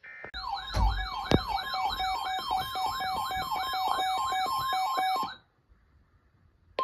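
Electronic warbling alert siren from an emergency alert receiver, set off by an incoming special marine warning. It sweeps up and down about two and a half times a second over steady tones for about five seconds, then cuts off. It follows a brief buzzy data burst at the start, and a steady alert tone begins right at the end.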